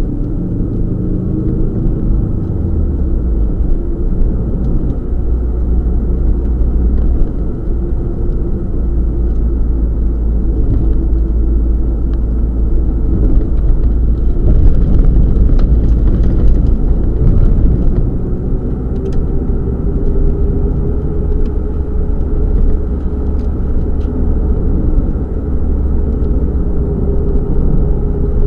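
Subaru Legacy rally car driving slowly, heard from inside the cabin: a steady low boxer-engine drone with road noise. The pitch falls over the first few seconds as the car slows.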